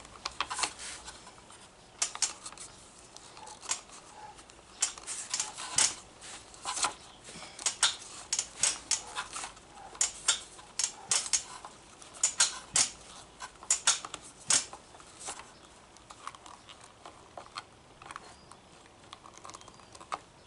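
Irregular plastic clicks and knocks from hands working a string trimmer's bump head, pushing and twisting it as if to get it apart; the clicks come in clusters and thin out in the last few seconds.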